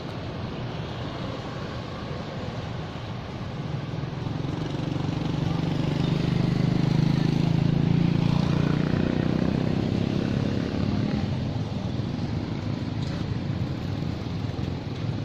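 A motor vehicle passing: an engine's sound builds over a few seconds, is loudest about halfway through, then fades away over a steady outdoor background.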